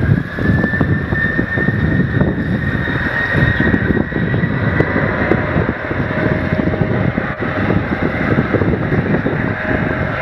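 Boeing 717's two BMW Rolls-Royce BR715 turbofans at takeoff power during the runway roll: a loud rumbling roar with a fan whine that rises slowly in pitch over the first couple of seconds and then holds steady. A second, lower whine joins about halfway through.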